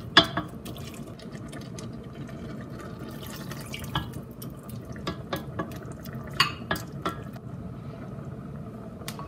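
A pot of amaranth greens with water freshly added, simmering in a stainless steel pot while a wooden spoon stirs it. The spoon knocks against the pot about a dozen times, loudest just at the start and several times between about five and seven seconds in.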